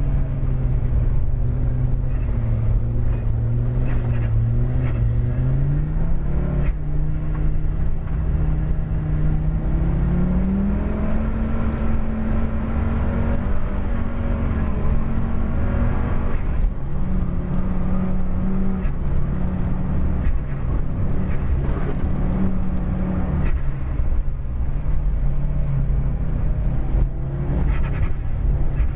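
Audi car engine heard from inside the cabin while driving hard, its pitch stepping up a few seconds in and again about ten seconds in, then dropping back and shifting with throttle and gear changes. A steady low rumble of tyres and road runs underneath.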